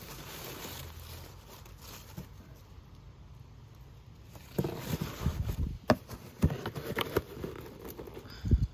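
Crumpled kraft packing paper rustling and crinkling as a cardboard box is dug through, quiet at first, then busier from about halfway with sharp clicks and knocks. A louder thump comes near the end.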